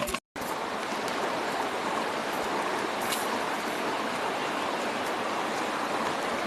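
Flowing river water: a steady, even rush of stream noise.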